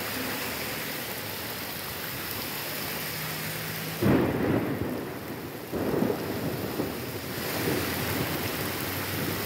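Heavy rain pouring steadily on a street. Two sudden louder rumbles come in, about four and about six seconds in.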